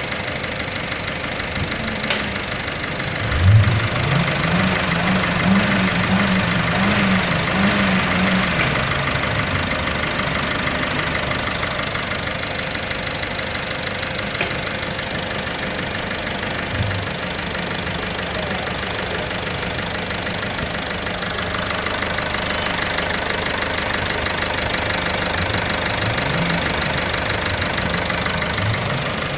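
Peugeot 308 HDi four-cylinder turbodiesel idling. It is revved up once about three and a half seconds in, held for about five seconds, then drops back to idle, with a few brief smaller blips later on.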